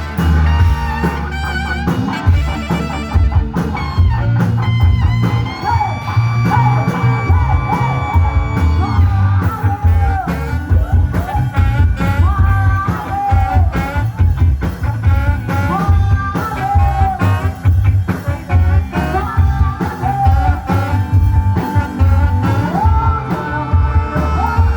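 Rock music with a heavy bass line, drums and a singing voice or lead instrument carrying the melody.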